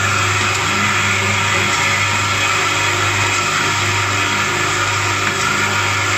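Chaosheng CS-G8824L paint roller end-cap and core inserting machine running steadily: its vibratory bowl feeders give a constant low hum, with the plastic end caps rattling through the bowls and the cam-driven mechanism working.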